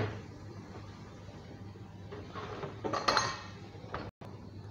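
Cookware being handled at a frying pan: a sharp clack at the start, then a scraping clink with a short ring about two and a half to three and a half seconds in, over a low steady hum.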